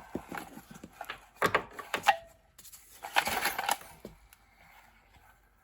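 Clicks, knocks and rattling from a small Honda engine's recoil starter being worked by hand, with the loudest run of rattling about three seconds in, then fading to a few faint ticks. The recoil is dragging and rewinding slowly.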